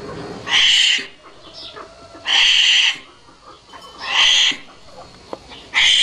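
Wombat huffing: four short breathy hisses, evenly spaced about two seconds apart.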